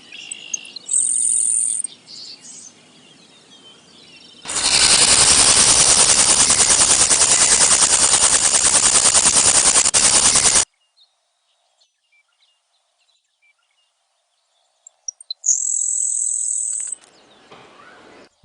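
Grasshoppers stridulating, rubbing a toothed ridge on the hind leg against the wing. A short high buzz comes about a second in, then a loud, rapid rasping trill lasts about six seconds and cuts off suddenly. After a few seconds of silence, another high buzz sounds near the end.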